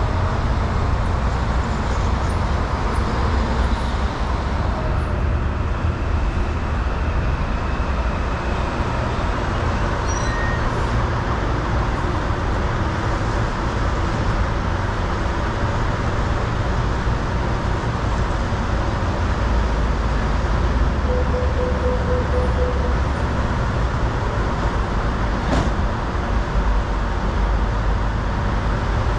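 Steady rumble of road traffic, an even wash of passing cars and heavier vehicles with no single event standing out.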